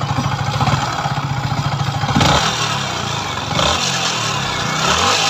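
Yamaha MT motorcycle engine idling, then revved with the throttle a few times from about two seconds in. This is the sound problem the bike was brought in for: earlier work at another shop left the engine sound unsatisfactory, and the source of the noise is not yet found.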